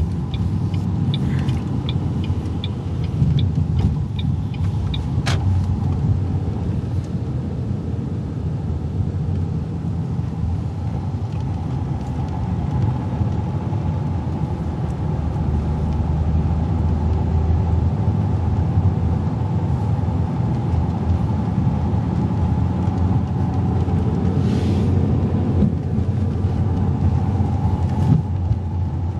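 Road noise of a car being driven: a steady low rumble of engine and tyres. For the first few seconds there is a light, regular ticking, about two ticks a second.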